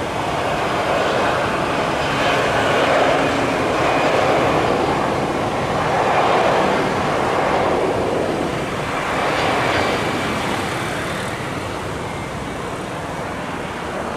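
Airbus A320-214 airliner's CFM56 jet engines at take-off thrust: a loud, steady rushing noise that swells and eases as the jet passes, dropping off slightly near the end.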